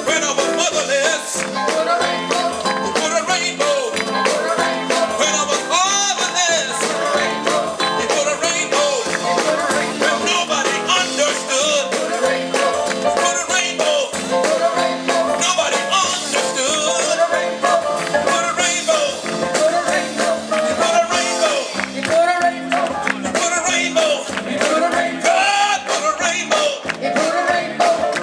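Live gospel band music with singing voices over a steady beat.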